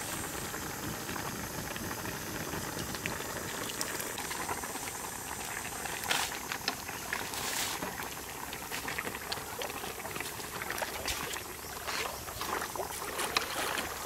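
Soup boiling in a pan over a wood fire, a steady bubbling. In the second half a wooden spoon stirs through it, adding irregular splashes and clicks.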